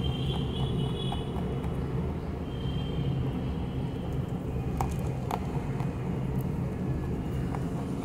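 Pet rabbit crunching dry food pellets taken from a hand, heard as a few short crisp clicks, the clearest two about five seconds in, over a steady low rumble.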